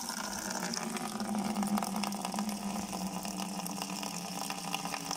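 Water running from a tap into a plastic bucket: a steady gushing fill with a low steady hum under it.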